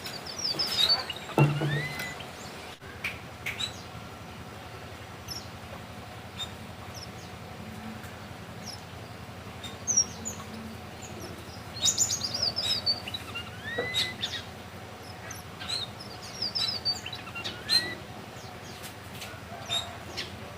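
Red avadavat (strawberry finch) singing in short bursts of quick chirps and rising-and-falling whistles, several seconds apart; its song is filled in with learned canary phrases.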